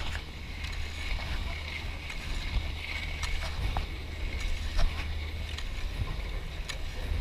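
Skis sliding and scraping over packed snow in a steady hiss, over a constant low rumble of wind on the microphone, with scattered small clicks.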